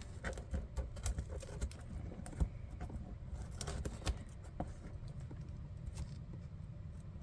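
A shipping box being handled and cut at with dull scissors: irregular small clicks, taps and rustles.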